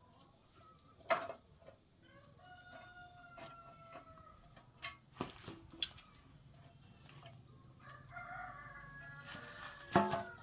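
A rooster crowing in the background, one long held call a couple of seconds in and another near the end, with a few sharp knocks in between, the loudest about a second in and near the end.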